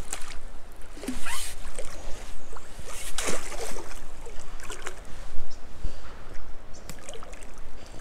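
Water splashing and sloshing close to the microphone in irregular swishes, the strongest about a second in and about three seconds in, with a few small knocks.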